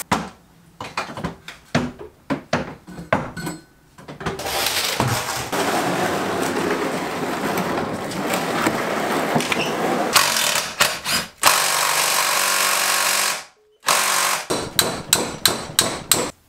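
Workshop sounds of car parts being handled and cleaned: runs of sharp knocks and clattering, with two stretches of steady rasping noise in between and a quick string of knocks near the end.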